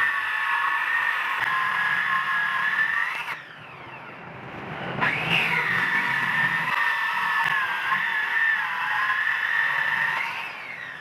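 A high-speed electric power tool's motor whining at full speed, winding down about three seconds in, then starting up again about five seconds in and running until it winds down again near the end.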